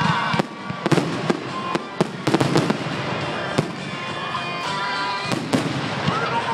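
Fireworks going off: a quick, irregular run of sharp bangs and crackles, with music playing underneath.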